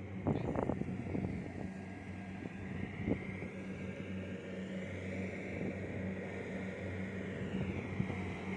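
Kubota DC70 Plus rice combine harvester running steadily while cutting, a constant low engine hum with a higher whine that rises and falls in pitch around the middle.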